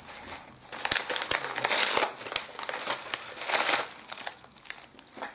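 Plastic packaging crinkling and rustling unevenly as hands pull a pouch in a clear plastic bag out of a white plastic mailer.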